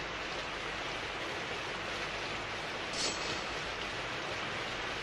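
Steady hiss of heavy rain, a cartoon sound effect, with a brief sharper hiss about three seconds in.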